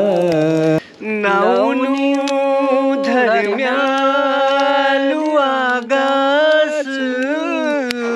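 A solo voice sings a Garhwali folk song, holding long, wavering, ornamented notes. The singing breaks off briefly just before a second in, then a new phrase starts.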